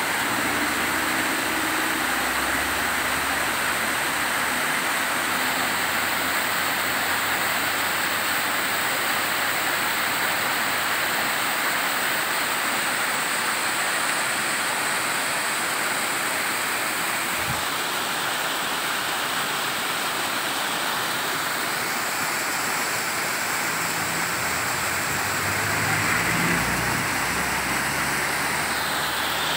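Small waterfall pouring and splashing down a sloping rock face: a steady rush of water.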